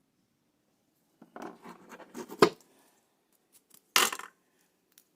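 Wire cutters working on a short length of Romex cable for a pigtail: scraping and rustling of the cable being handled, a sharp snap about two and a half seconds in, and another sharper snap about a second and a half later.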